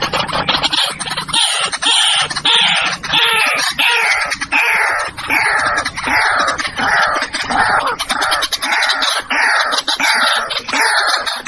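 White-breasted waterhen calling: a long run of rough, downward-sweeping notes repeated steadily, about one and a half a second.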